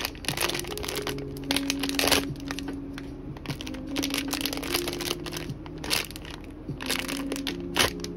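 White plastic blind-box pouch crinkling and crackling in the hands as it is torn open and handled, in a run of short, sharp rustles.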